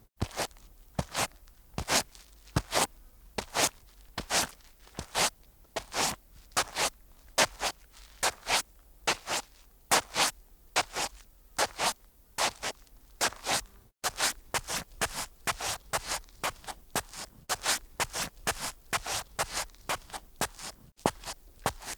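A rapid, uneven series of short, crisp scraping crunches, about two to three a second.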